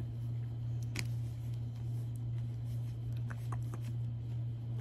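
A steady low hum, with one sharp click about a second in and a few faint handling noises.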